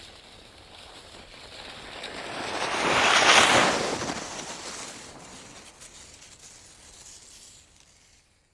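Skis hissing over snow as a skier passes close by: the swish builds to a loud peak about three seconds in, then fades away.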